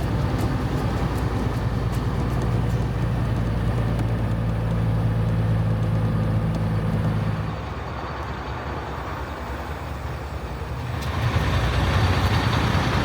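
Grain truck engine running on the road, heard from inside the cab as a steady low hum. About halfway through the engine note drops away, then picks up again near the end as the truck pulls harder.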